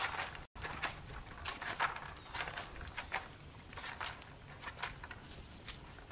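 A horse nosing at a board on a dirt paddock floor, making irregular soft scuffs, clicks and rustles as it searches for treats, over a low wind rumble. A faint high chirp sounds three times.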